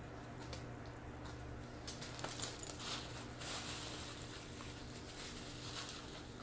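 Close-miked chewing and small wet mouth sounds of people eating burgers, with soft crackles of paper wrappers and napkins, busiest about two to three seconds in, over a steady low electrical hum.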